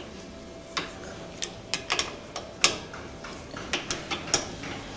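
Metal parts lightly clicking and clinking against a motorcycle fork tube as the seal drivers and seals are handled onto it. There are a dozen or so sharp clicks at irregular intervals, the loudest a little past halfway.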